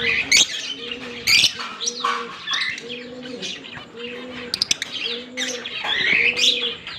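Fischer's lovebirds chirping and squeaking in fast, shrill bursts that keep overlapping. Under them is a low, steady cooing note, repeated in even pulses about every 0.7 seconds.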